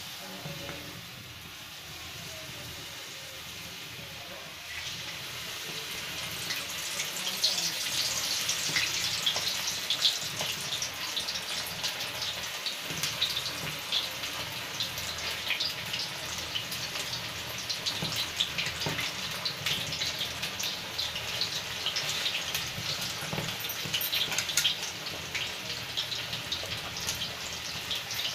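Batter-coated cauliflower florets deep-frying in hot oil in an iron kadhai: a steady sizzle full of small crackles and pops. The sizzle grows louder about five seconds in, as more florets go into the oil.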